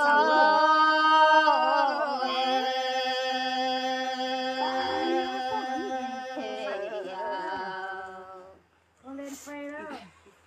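Red Dao (Iu Mien) women singing a folk song a cappella, drawing out long held notes. The singing breaks off about eight and a half seconds in, and a short phrase follows.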